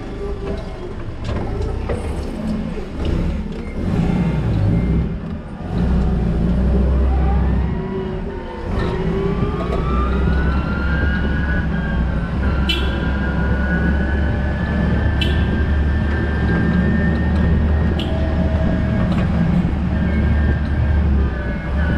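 Toyota counterbalance forklift running and driving, heard from the driver's seat: a steady low hum with a whine that rises and falls in pitch as it moves. A few sharp ticks in the second half.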